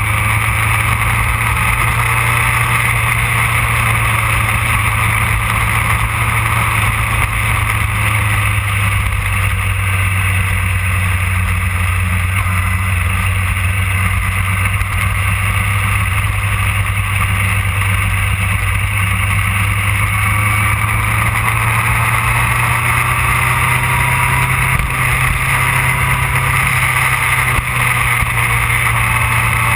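Yamaha R1 sportbike's engine droning at a steady cruising speed under heavy wind rush, heard from a camera mounted on the moving bike. The engine pitch rises a little about two-thirds of the way through.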